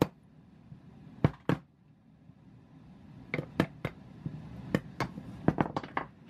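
Claw hammer striking a wood chisel, a series of sharp, irregularly spaced knocks, coming faster in the second half, as the chisel knocks out the waste between saw kerfs to cut a notch in a wooden board.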